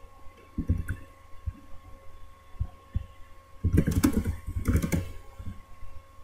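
Pen writing on notebook paper: scattered light taps and bumps, then a run of quick scratching strokes about halfway through. A faint steady hum lies underneath.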